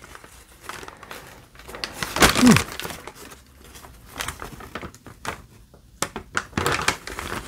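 Packing material rustling and crinkling in irregular handfuls as items are pulled out of a mailed box, with scattered small clicks. A man gives a short hum about two seconds in.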